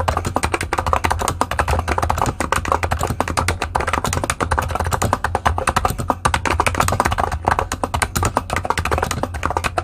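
Fast, continuous typing on a Niz Atom66, a Topre-style 45 g keyboard with its stock side-printed keycaps: a rapid, unbroken run of muted key clicks.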